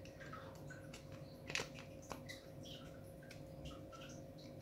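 Utility knife blade scraping and shaving the plastic slide of a spring airsoft P226 pistol: faint, irregular little scrapes and ticks, with a sharper click about one and a half seconds in and another half a second later. The blade is cleaning off melted plastic left by a heated cutter. A faint steady hum runs underneath.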